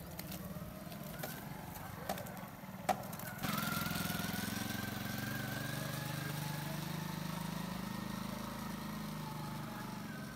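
A few sharp knocks, then from about three and a half seconds in a motorcycle engine running steadily at low speed close by.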